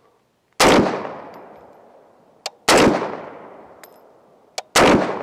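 Three shots from an AR-15 with a 10.5-inch 450 Bushmaster upper, about two seconds apart, each followed by a long echo that dies away.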